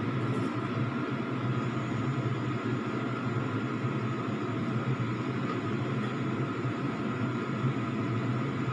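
Steady mechanical hum with an even rushing noise and a faint high whine, unchanging throughout.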